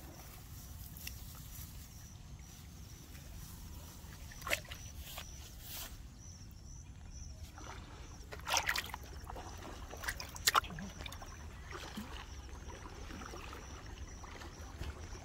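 A caught fish thrashing in a plastic bucket of water: a handful of short splashes and slaps, the loudest two about two-thirds of the way through, over a steady low rumble and a faint steady high insect chirp.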